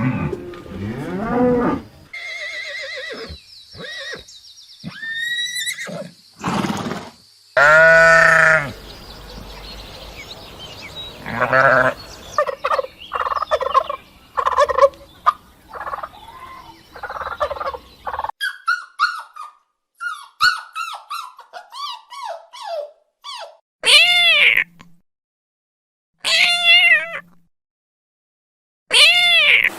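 A string of separate animal calls, one after another with short gaps, changing from one kind of animal to another. Near the end come three high, arching calls about two and a half seconds apart.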